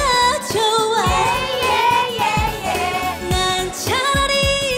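Upbeat Korean song performed live: a woman holding sung notes over band backing with a steady drum beat.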